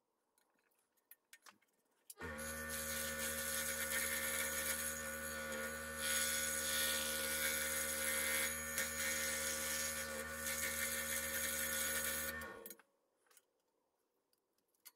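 Electric scroll saw switched on about two seconds in, running steadily while a thin wooden piece is fed into the blade, then switched off near the end and running down. Light clicks of the workpiece being handled before and after.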